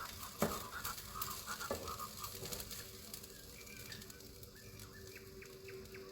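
A few light knocks and clinks of cookware, with small clicks that thin out after about two and a half seconds.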